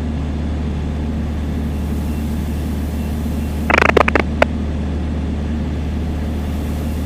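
Piper Dakota's six-cylinder piston engine droning steadily in the cockpit, heard through the headset audio feed. About four seconds in, a brief burst of radio noise and a couple of sharp clicks, like a transmission being keyed and cut off.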